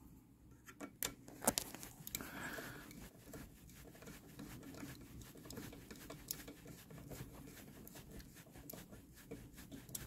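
Faint handling noise of hands and a screwdriver working on a diesel heater's plastic casing and wiring: scattered small clicks and knocks, the sharpest about a second and a half in, with light scraping and rustling as cables are routed and clips and screws refitted.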